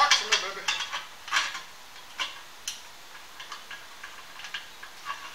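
Light metallic clicks and clinks from hands working on a rear disc brake rotor and hub: a quick run of clicks at the start, then scattered single taps.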